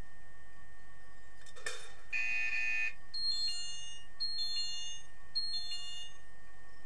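Underwater hockey signalling buzzer heard through the water. A sharp knock comes first, then a steady electronic buzz lasting under a second, then three short multi-tone beeps about a second apart.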